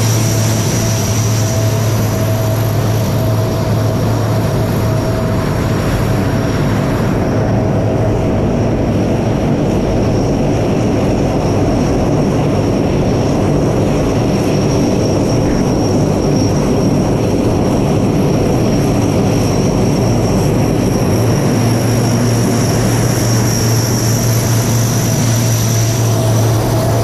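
Turboprop engines of C-130 Hercules transport aircraft running on the ground: a steady low propeller drone under a high turbine whine. The drone and whine fade back about a quarter of the way in, leaving a rushing noise, and come back strong near the end.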